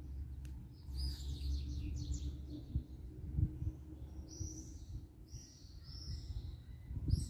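Small birds chirping in short runs of quick high notes, several times, over a low steady background rumble.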